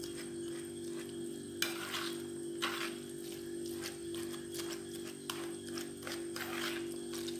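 Metal fork stirring and scraping a mixture of mashed boiled cauliflower, chopped onion, spices and raw egg in a plastic bowl, in uneven strokes, the loudest about one and a half and two and a half seconds in. A steady low tone hums underneath.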